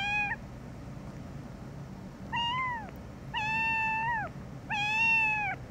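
Young kitten meowing in protest while being handled: a short meow right at the start, then three high-pitched meows about a second apart in the second half, each under a second and arching slightly up then down in pitch.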